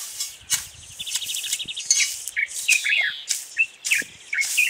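Hand hoe chopping and scraping weeds and dry grass out of the soil in short, repeated strokes, with small birds chirping and trilling.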